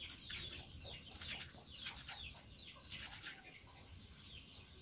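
Birds chirping in the background, many short high chirps that drop in pitch, in quick succession. A few faint taps of a knife on a plastic cutting board come about three seconds in.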